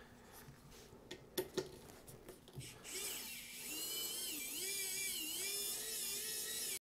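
A WOWStick pen-style electric precision screwdriver whining as it backs out a screw from a 3D printer's control box, its pitch wavering up and down. A few light handling clicks come before the motor starts about three seconds in, and the sound cuts off suddenly near the end.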